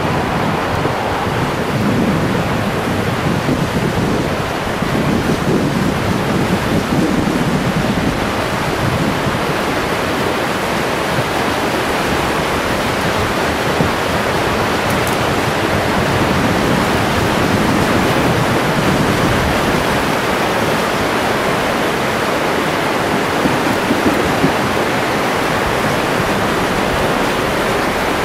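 Flash flood front moving down a sandy dry wash, a steady rushing of water and floating woody debris, with gusts of wind buffeting the microphone.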